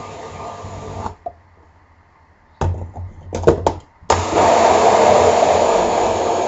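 Countertop blender mixing a protein shake: it runs, is switched off about a second in, a few knocks and rattles follow, then it starts again abruptly and runs loudly.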